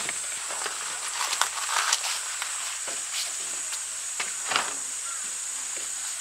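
Scattered knocks and footsteps as plastic gear boxes and a cooler are carried and set down on a wooden deck, the loudest knock about four and a half seconds in. Under it runs a steady high-pitched insect drone.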